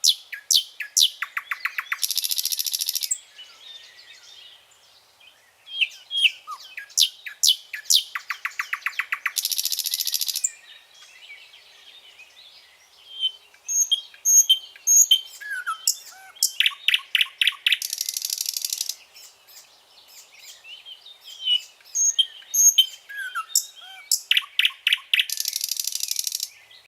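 Nightingale singing: four loud song phrases, each a mix of clear whistles, fast runs of repeated notes and a harsh buzzing rattle, with softer chirps and whistles between them.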